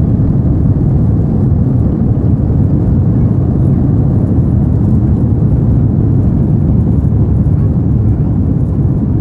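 Steady low rumble inside a jet airliner's cabin as it moves along the ground: engine and rolling noise heard from a window seat.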